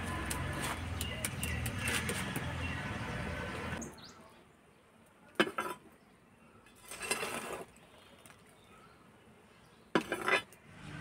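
A metal rod scraping and clinking on charcoal embers and a clay pot as leftover coals from a mud stove are pushed into the pot, in three short bursts over quiet. Before that there is a steady outdoor background hum with scattered clicks.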